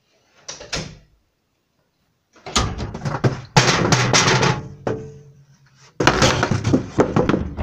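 Loud knocking and banging with rattling clatter in two bursts, the first about two and a half seconds in and the second about six seconds in, with many sharp strokes in each.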